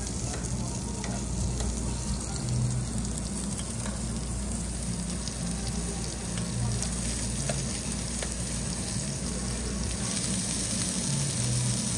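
Thick-cut pork sizzling on a round tabletop Korean barbecue grill plate, a steady frying hiss.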